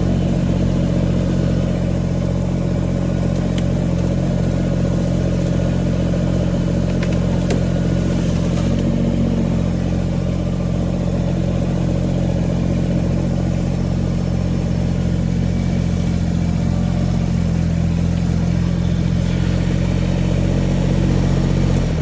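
Kubota L2350 compact tractor's diesel engine running steadily under work, with a few light clicks over it.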